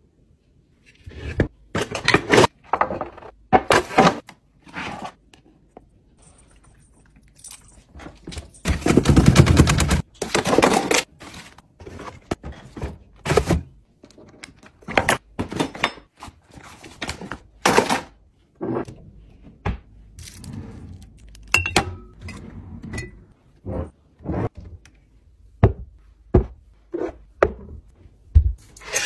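Kitchen cleaning and tidying clatter: a long run of thunks, knocks and scrapes as kitchen items are handled, wiped and put away, with a loud rushing noise lasting about a second and a half from about nine seconds in.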